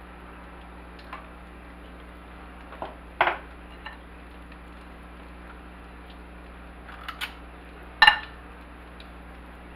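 A metal spoon clinking against a ceramic bowl while scooping batter: a few short, sharp clinks, the loudest about three seconds in and about eight seconds in, over a steady low hum.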